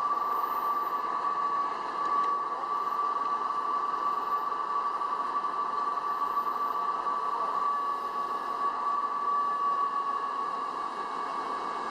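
Wheel loaders running near a truck: a steady mechanical hiss with a constant high-pitched whine.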